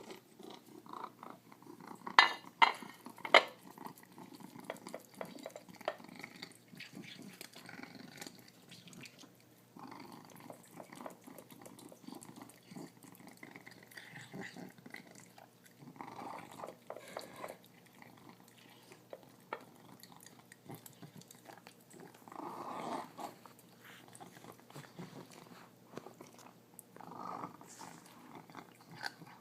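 Feral cat eating, with chewing and the pig-like snuffling grunts that give him his name ("piggy noises"), in short spells every few seconds. Three sharp clicks about two to three and a half seconds in are the loudest sounds.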